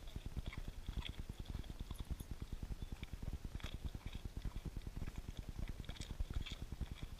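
Dog eating broken crackers off the ground right at the microphone: rapid, steady chewing with small crunching clicks.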